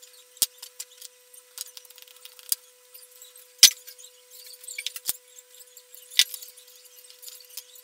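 Scattered light clicks and taps of hands handling wires and connectors at a mains transformer's terminals, the sharpest about three and a half seconds in, over a faint steady tone.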